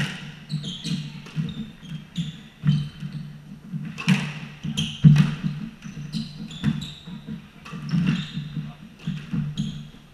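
Squash rally: sharp cracks of rackets striking the ball and the ball smacking the court walls, coming every second or so, with shoes squeaking and footfalls on the wooden floor, all echoing in the enclosed court.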